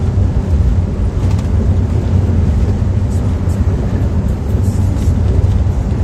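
Cabin noise of a moving car: a steady low engine and road rumble.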